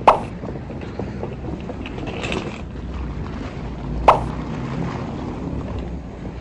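Airport terminal hall ambience picked up by a handheld phone: a steady low rumble of background noise, broken by two sharp clicks about four seconds apart.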